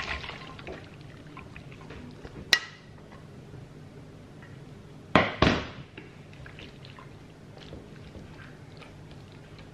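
Thick tomato stew with meatballs and beans sliding from a frying pan into a ceramic oven dish. There is a sharp clink about two and a half seconds in and two loud knocks a little after five seconds, followed by faint scraping as a wooden spatula spreads the stew in the dish.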